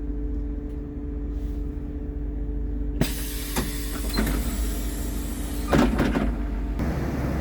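2007 Blue Bird All American rear-engine CNG school bus running with a steady hum. About three seconds in a loud hiss sets in and lasts nearly four seconds, with a few knocks and a clatter around six seconds in.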